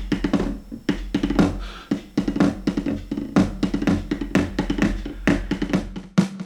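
Millenium MPS-150 electronic drum kit's sound module, recorded direct: a fast run of light drum hits, several a second, played softly on the pads to show they are touch sensitive.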